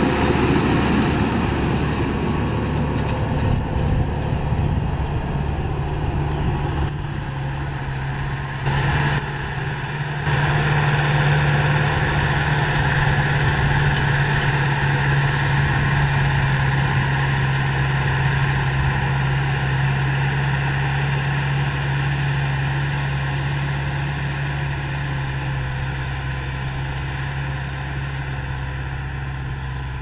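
Massey Ferguson 4299 tractor's diesel engine running steadily under load as it pulls a 56-disc offset disc harrow through the soil, fading gradually as the tractor moves away.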